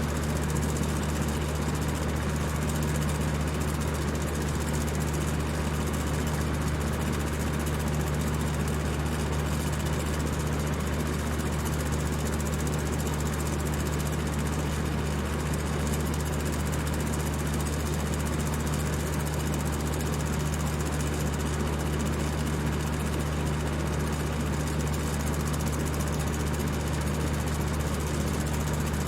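Electric fan running at high speed: a steady whir of rushing air over a constant low motor hum.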